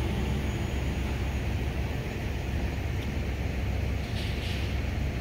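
A steady low rumble with a faint hiss above it, unchanging throughout.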